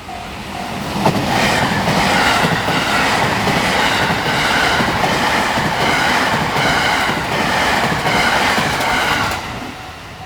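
A JR train passing close by at speed over a level crossing, its wheels clattering in a repeating rhythm over the rail joints. The train comes in suddenly about a second in and drops away about nine seconds in. The level-crossing alarm's pulsing electronic tone is heard faintly before and after it.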